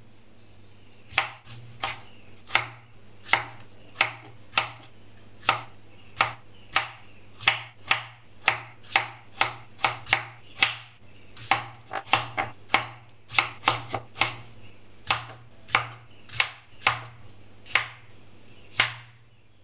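Kitchen knife cutting through tomatoes and knocking on a wooden chopping board: a sharp tap with each stroke, about one to two a second at an uneven pace, starting about a second in. A faint steady low hum runs underneath.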